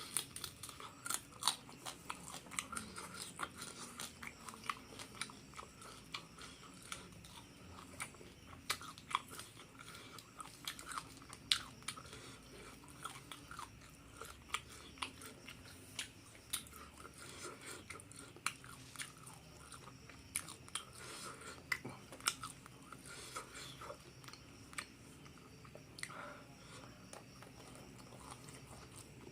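Close-miked chewing and biting of crispy fried duck with rice: irregular crunches and wet mouth sounds, with a sharper crunch now and then.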